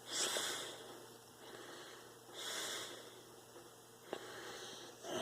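A man breathing audibly close to the microphone: two airy breaths, one at the start and one about two and a half seconds in, with a small click near the end.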